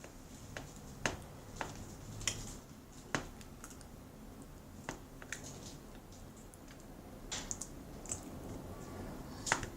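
Irregular sharp clicks and taps of a spoon or pencil against a plastic container while glue and contact-lens solution are stirred into slime, about ten in all, the loudest near the end.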